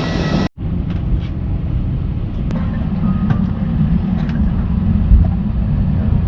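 Steady low mechanical rumble, like a vehicle or aircraft engine heard from inside, with a few faint clicks. The sound cuts out abruptly about half a second in and comes back.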